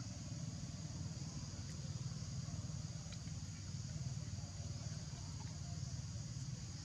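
Steady outdoor background noise: a constant low rumble under a constant high-pitched drone.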